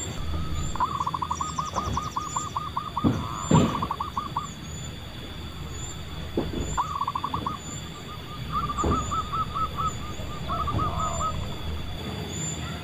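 Zebra dove (perkutut) cooing in several bursts of quick rolling notes: a wild dove starting to answer the lure. A couple of dull knocks about three seconds in are the loudest sound, with faint high chirps behind.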